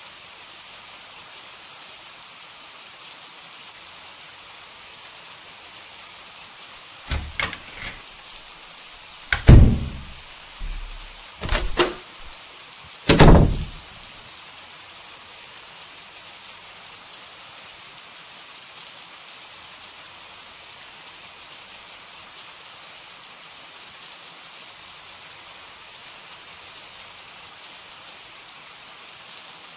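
Steady rain hiss, with a run of door sounds about seven to fourteen seconds in: a couple of light clicks, then several heavy thumps, the loudest about nine and a half and thirteen seconds in, as a door is opened and shut.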